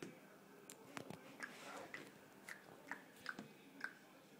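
Faint, irregular small clicks and taps of cardboard jigsaw puzzle pieces being picked up, shuffled and pressed into place on a tabletop, with a short rustle partway through.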